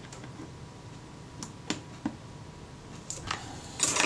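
Light clicks and taps of a jeweller's screwdriver and small tools on a camera's metal top plate. A few spaced clicks come first, then a quick cluster near the end.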